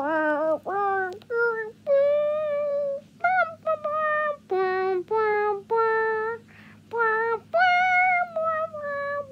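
A child singing a tune in a high voice, a string of held notes that step up and down in pitch with short breaks between them.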